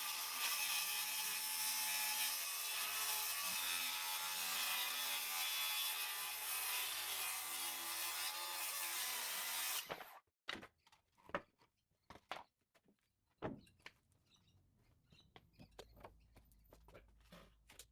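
A power tool running steadily on wood for about ten seconds, then cutting off suddenly, followed by scattered light knocks and clicks of wooden pieces being handled.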